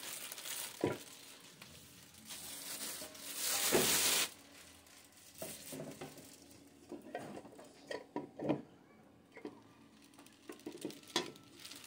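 Plastic wrapping rustling and crinkling as it is pulled off a pressure cooker's inner pot, loudest for a couple of seconds about three seconds in, with several light knocks and clinks as the pot and its air-fryer rack are handled.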